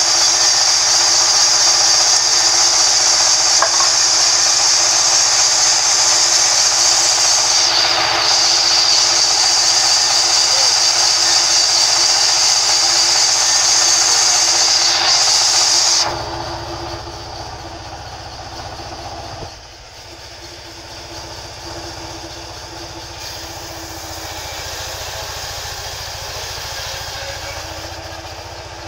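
Large vertical band saw running in a sawmill while wood slabs are cut, a loud high-pitched hiss over a steady hum. About halfway through the hiss stops suddenly, and the quieter hum and low rumble of the machine carry on.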